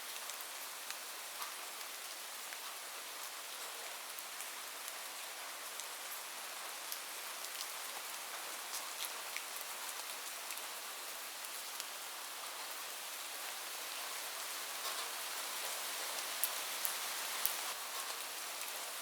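Steady rain falling on a roof: an even hiss with sharp ticks of single drops scattered through it, which come more often and a little louder in the last few seconds.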